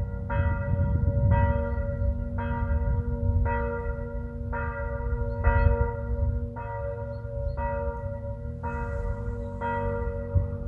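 A church bell ringing, struck about once a second, with a low rumble underneath.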